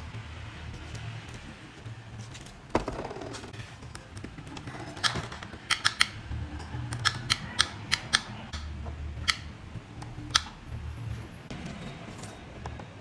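A series of sharp clicks and taps, about a dozen, clustered between about five and ten seconds in, over a low steady hum.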